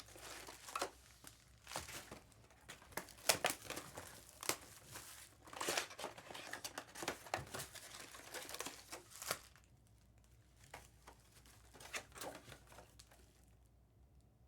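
Plastic wrapping crinkling and tearing as sealed trading-card boxes are opened, a busy run of sharp crackles that thins to a few faint ones after about nine and a half seconds.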